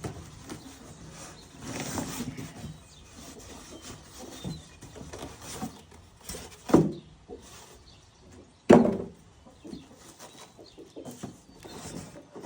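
Cardboard packaging rustling and scraping, with knocks, as a Bauer belt grinder and disc sander is wrestled out of its shipping box. Two short, loud sounds that fall in pitch stand out about seven and nine seconds in.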